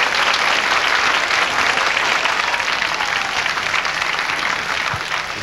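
Theatre audience applauding: many hands clapping together, slowly dying away near the end.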